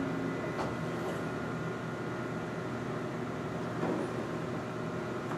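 Steady electrical hum of medical imaging equipment, made of several fixed tones, with a couple of faint soft knocks, about half a second in and near four seconds.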